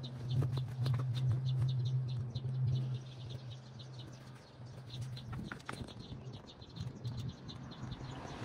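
Small birds chirping in quick repeated notes over a steady low hum, which is loudest for the first few seconds and then fades down.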